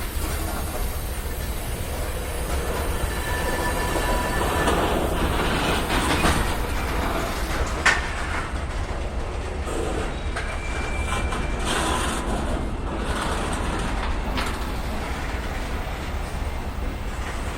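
BNSF freight train cars rolling by with a steady rumble and clacking wheels, and faint wheel squeal in places. A single sharp bang about eight seconds in.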